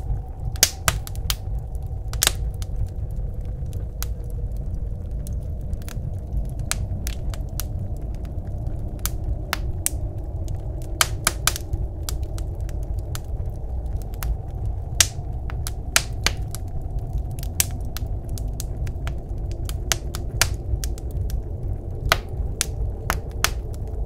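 Wood fire in a wood stove crackling, with irregular sharp pops and snaps, over a steady low rumble of blizzard wind.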